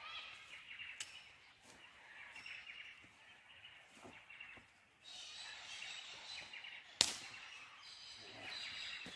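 Birds calling in open bushland over a quiet outdoor background, with a few sharp knocks; the loudest knock comes about seven seconds in.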